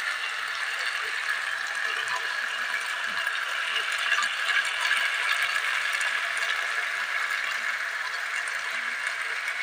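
Sautéed zucchini, mushrooms, onion and tomato sizzling steadily in a pan, a constant frying hiss with fine crackles.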